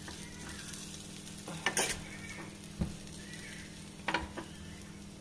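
Crushed ginger and black peppercorns sizzling faintly in hot ghee in a pan, with a spoon scraping and tapping the pan a few times as it is stirred slowly. The ginger is frying until half crunchy, releasing its juice into the ghee.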